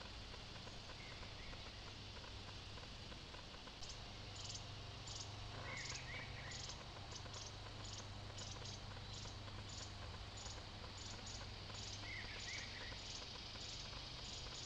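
An insect chirping in a steady rhythm of short high pulses, about two to three a second, starting about four seconds in. A few short faint chirps and a steady low hum lie underneath.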